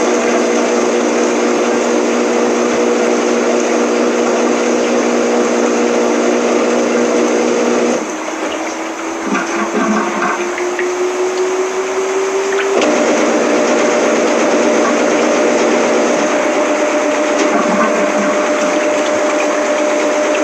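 Washing machine running mid-cycle: a steady motor and pump hum that dips about eight seconds in, gives way to a slowly rising whine, then settles into a steady, higher-pitched hum about thirteen seconds in.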